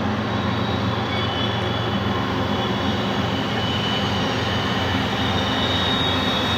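Diesel freight locomotive engines running with a steady low rumble, with faint thin high tones over it.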